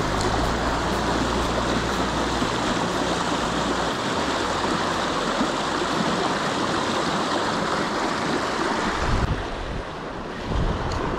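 Small, fast trout stream rushing over rocks in a shallow riffle, a steady hiss of water close to the microphone. About nine seconds in, the sound drops to quieter flowing water, with wind buffeting the microphone.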